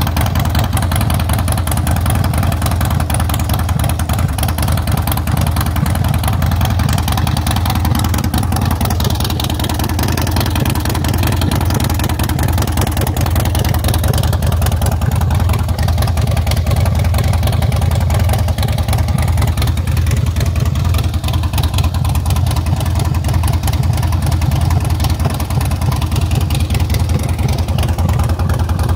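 Harley-Davidson Night Train's Twin Cam 88B V-twin engine idling steadily through its black twin exhaust pipes.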